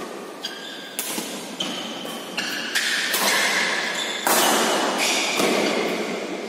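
Badminton rally: rackets striking a shuttlecock about eight times, sharp cracks a half second to a second apart, each ringing on in the large hall. The loudest hit comes about two-thirds of the way in.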